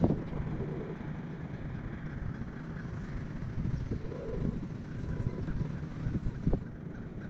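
Steady low rumble of wind and water noise on the microphone of a kayak under way. A sharp knock at the very start and another about six and a half seconds in.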